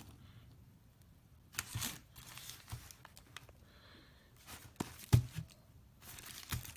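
Cardboard box of a firework repeater cake being handled and turned over on a wooden table: scattered rustles, scrapes and light taps, with one sharp knock about five seconds in.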